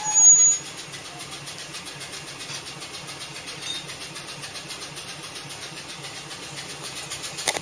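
An engine idling steadily with a fast, even pulse. A short, loud squeal that falls slightly in pitch comes right at the start.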